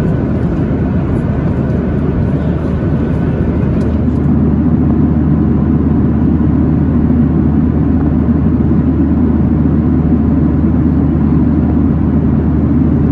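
Steady low roar inside a Boeing 737-900ER cabin in cruise, heard from a seat over the wing: the CFM56 engines and the airflow over the fuselage. About four seconds in the roar becomes slightly louder and deeper.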